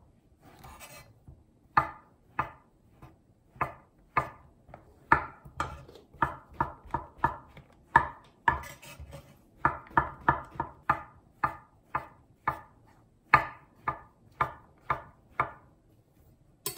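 Chef's knife slicing king oyster mushrooms on an end-grain wooden cutting board: a long run of uneven, sharp knocks, roughly two or three a second, each one the blade cutting through and striking the board.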